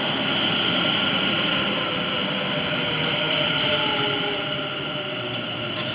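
West Midlands Railway Class 730 electric multiple unit running past along the platform, with steady rolling noise. Traction motors whine over it, a few tones sliding down in pitch as the train slows on arrival.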